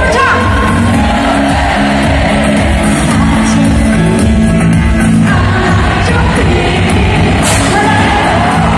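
Live pop concert heard from the stands of an arena: a band playing with a woman singing, loud and echoing through the hall.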